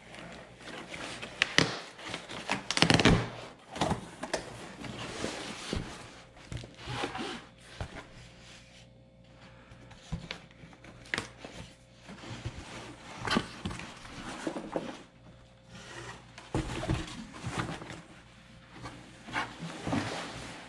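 Unboxing noises: packaging handled and moved about on a tabletop, with irregular rustling, rubbing and light knocks and thunks. The loudest is a cluster of knocks about three seconds in.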